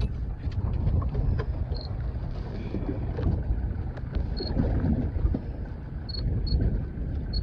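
Wind buffeting the microphone and water noise aboard an open fishing boat, a steady low rumble. A few short high beeps sound, around two seconds in and again around four and six seconds in.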